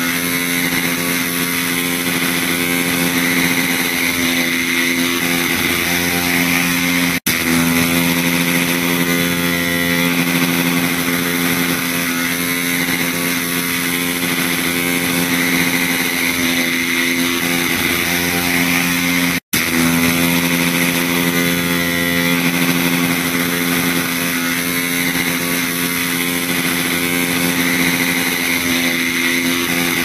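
Electric hair clipper running with a steady buzz, cut by two momentary dropouts, one about seven seconds in and one about two-thirds of the way through.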